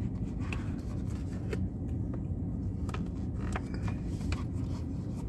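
Steady low rumble in a parked car's cabin, with scattered soft clicks and scrapes as food and its packaging are handled.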